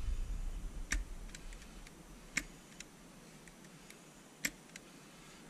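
Near-quiet woodland with three sharp clicks about a second and a half to two seconds apart, and a few fainter ticks between them.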